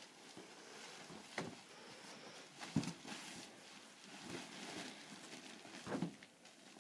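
Faint handling noise from a folding shower cubicle being wrestled into its fold: soft rustling with a few scattered knocks, the loudest about three seconds in.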